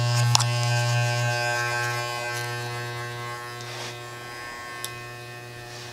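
Small electric hair clipper buzzing steadily as it tapers the hair up the back of the neck, the buzz gradually fading.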